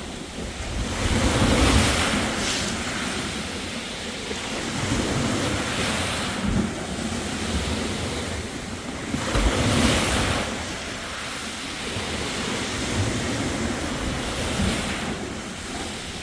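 Sea waves breaking on a beach, the wash swelling about every four seconds, with wind buffeting the microphone.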